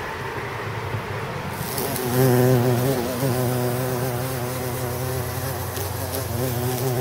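Eastern carpenter bee buzzing in flight: a low, steady hum with a slightly wavering pitch that comes in about two seconds in.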